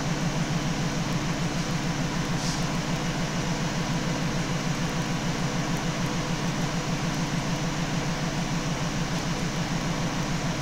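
Wind tunnel machinery running steadily: a low hum with a fast flutter in it, under an even hiss.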